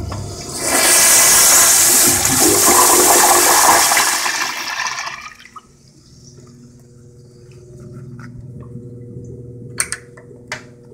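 Toilet flushometer valve flushing: a thump as the handle is pushed, then a loud rush of water for about five seconds that dies away into a quieter steady wash. Near the end come two sharp metal clicks from the stall door latch.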